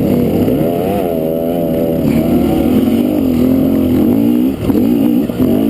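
Dirt bike engine being ridden, its revs rising and falling again and again as the throttle is worked, with a brief drop near the end.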